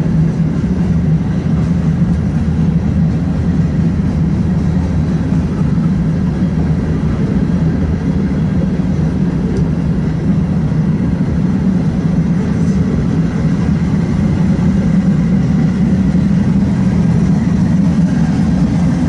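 Freight cars of a BNSF manifest train rolling past at a steady pace, wheels on the rails making a loud, even low rumble.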